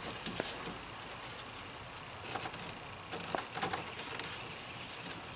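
Faint scattered clicks and rubbing from hands working the plastic push-button release of a quick-connect fuel line fitting on a fuel filter.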